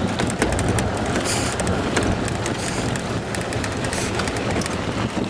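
A motor vehicle driving: a steady engine rumble, with the body and fittings rattling and clattering throughout.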